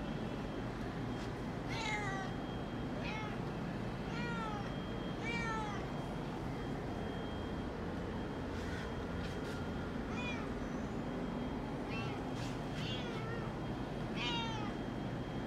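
Domestic tabby cat meowing repeatedly: short, high calls that fall in pitch, about eight in all, in two runs with a pause in the middle.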